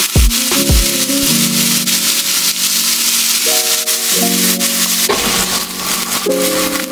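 Chopped vegetables sizzling loudly in a hot frying pan as they are tossed and stirred. About five seconds in a low rumble joins the hiss as flames flare up in the pan.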